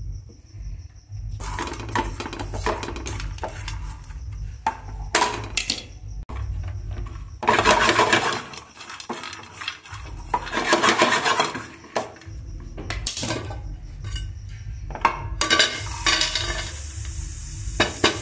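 A spatula stirring and scraping dry-roasting grated coconut, chickpeas and whole spices around a non-stick frying pan, in repeated scraping bursts with sharp clicks of spatula on pan. Near the end comes a longer, hissing scrape as the roasted mix is tipped out of the pan onto a steel plate. A steady low hum runs underneath.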